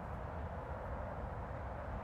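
Steady outdoor background noise: an even hiss with a fluttering low rumble underneath and no distinct events.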